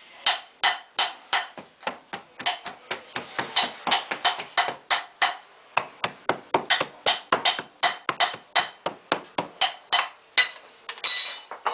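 Quick light metal-on-metal taps, about three or four a second, each with a short bright ring. They come from rapping the casting pattern in the sand mould to loosen it before it is drawn out.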